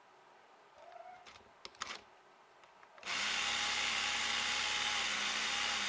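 A few faint clicks, then about three seconds in an HO-scale slot car's electric motor starts suddenly and runs steadily on a roller dyno with an even whir. It is drawing about 0.49 A at 9 V, a reading the owner calls horrible: a sign that something is very wrong with the car.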